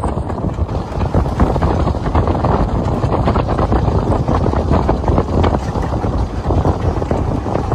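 Wind buffeting the microphone over the steady rumble and rattle of a wooden handcart rolling fast on asphalt.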